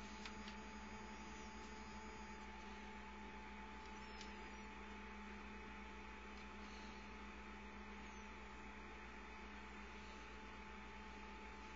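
Faint steady electrical hum over a low hiss, with a small click just after the start.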